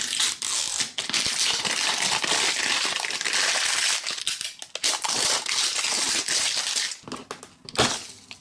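Thin plastic film wrapper being torn and peeled off a plastic toy capsule, crinkling continuously, followed by a few sharp clicks near the end.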